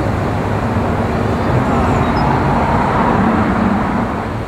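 Steady rumbling noise of road traffic, swelling around the middle and easing near the end.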